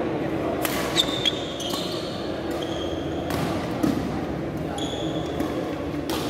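Badminton doubles rally in a sports hall: sharp racket hits on the shuttlecock and court shoes squeaking briefly on the floor three times, over a steady murmur of spectators.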